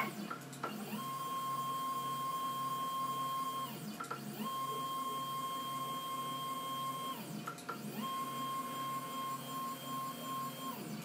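Stepper motors driving the axes of a homemade CNC router on a Proxxon KT150 cross table: a steady whine during three moves of about three seconds each. Each move rises in pitch as it speeds up and falls as it slows, with short clicks in the gaps between them.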